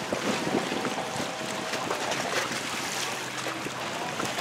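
Steady rush of wind and sea water around a boat on open water, with a faint steady engine hum underneath.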